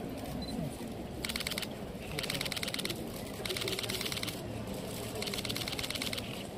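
Camera shutters firing in rapid bursts: four bursts in quick succession, each of half a second to a second of fast, even clicking.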